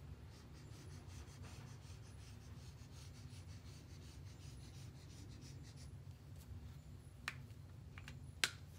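Green felt-tip marker drawn across paper in a wavy line: faint, quickly repeated scratching strokes of the tip that stop about six seconds in. Two short sharp clicks follow near the end.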